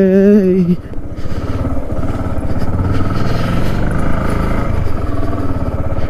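Yamaha R15's single-cylinder engine running at low speed as the bike rolls along a rough dirt road, its firing pulses steady throughout. In the first second the rider lets out a short held "aah".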